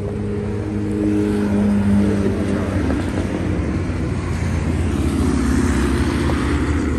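Car engine running steadily, with a rushing hiss that swells about five seconds in.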